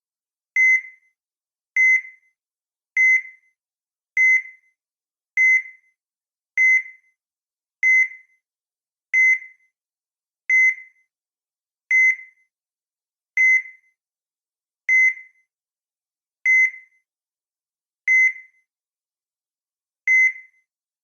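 Heart monitor beeping, one short beep per heartbeat, about fifteen in all. The beeps come slower and slower, from about one every 1.2 seconds to one every 2 seconds near the end.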